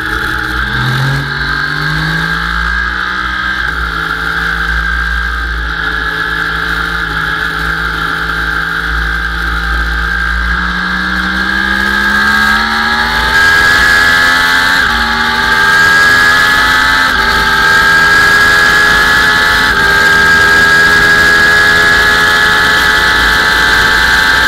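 Sport motorcycle engine heard from on board under hard acceleration. The revs climb, drop sharply at an upshift about four seconds in, then climb again through several quick upshifts, each a short dip in pitch, before holding high revs near the end, over a steady rush of wind on the microphone.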